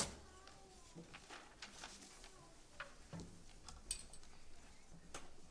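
Quiet room tone with a sharp click at the very start, then scattered faint clicks and small knocks, a duller knock about three seconds in, and a faint murmur.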